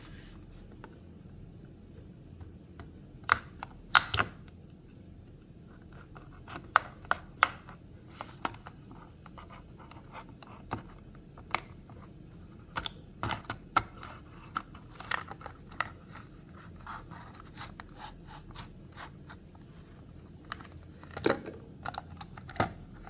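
A Hot Wheels blister pack being opened by hand: irregular clicks, scrapes and tearing of the cardboard card and plastic blister, coming in scattered clusters.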